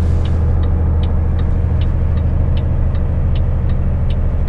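Mack semi truck's diesel engine pulling hard up a hill, heard from inside the cab as a steady low drone. A light tick repeats about two to three times a second over it.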